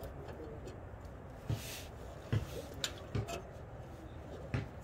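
Five or so light clicks and knocks, spaced irregularly, from an anti-theft clamp being handled and fitted by hand around a car's catalytic converter.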